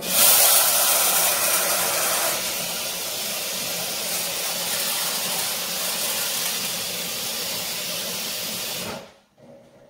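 Kitchen tap water running hard into a stainless steel saucepan, a steady rushing splash that is loudest in the first couple of seconds. It stops abruptly when the tap is turned off near the end.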